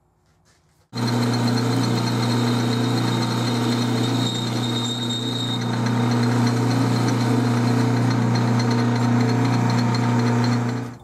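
Atlas 12-inch lathe running with a carbide boring bar cutting inside a steel bore, squaring off its cone-shaped bottom: a steady motor and drive hum with a thin high whine. It starts suddenly about a second in and stops abruptly near the end.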